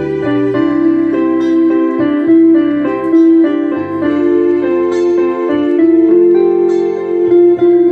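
Instrumental interlude played on an electric piano or keyboard: sustained chords and a melody line, without singing.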